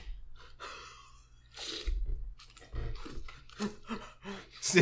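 Mouth sounds of two people eating hot pot close to the microphone: chewing and slurping. Short wet clicks come thick and fast over the second half.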